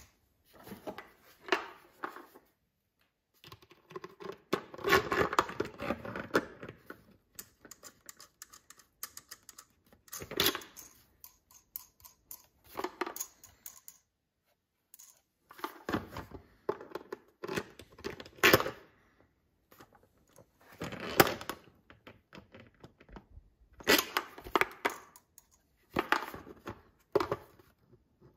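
Hands working a plastic fuel tank and its mounting hardware on a Stihl FS81 trimmer: scattered clicks, scrapes and light rattles as the tank is slid on over the bolts and nuts are put on, in short bursts with pauses between.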